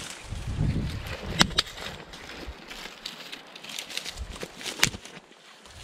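Dry flax stalks and leaves rustling and crackling as they are handled and pulled from the bush. There are a few sharp cracks, about a second and a half in and again near the end, and low wind buffeting on the microphone.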